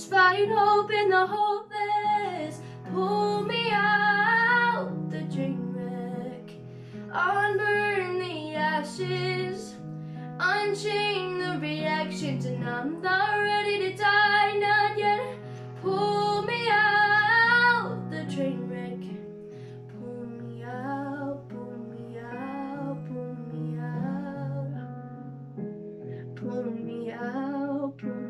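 A teenage girl singing a slow pop ballad solo over an instrumental accompaniment. Her phrases are strong and loud for the first two-thirds, then softer and quieter toward the end.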